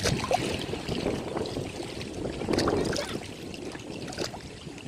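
Ocean waves washing onto the shore, a steady rush of surf that swells about two and a half seconds in, with small splashes and clicks.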